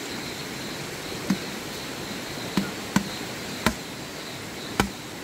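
Five sharp knocks at uneven intervals over a steady chorus of insects.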